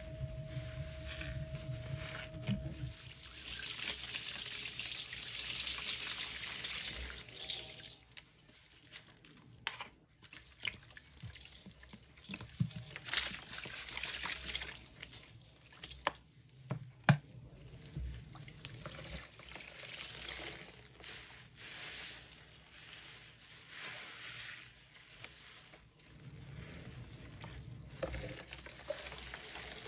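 Soaked sponges squeezed and dunked in a basin of sudsy water, with the water pouring and trickling out of them in repeated swells every few seconds. One sharp knock about halfway through.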